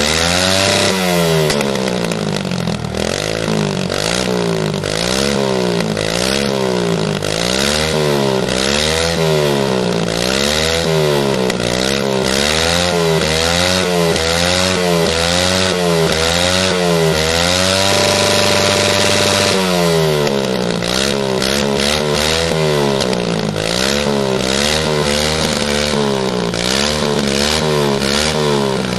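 Small mini dirt bike engine revved in quick throttle blips, its pitch rising and falling about once a second while the bike stands still. About two-thirds of the way through it is held at high revs for a couple of seconds, then the blipping starts again.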